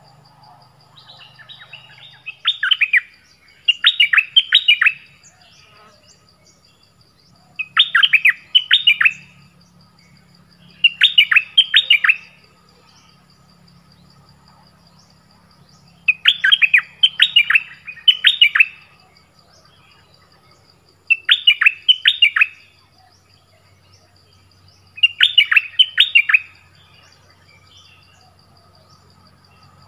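Caged bulbuls (นกดอกแตง) calling: short bursts of quick, falling chattering notes, repeated about every four seconds. A thin, steady high whine runs faintly underneath.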